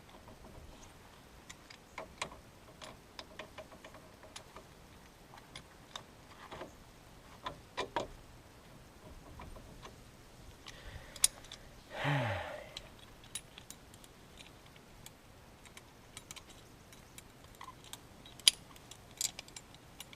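Hand tools clicking and clinking as they are handled on the car: scattered sharp metallic ticks at irregular spacing, with one louder, short, downward-sliding sound about twelve seconds in.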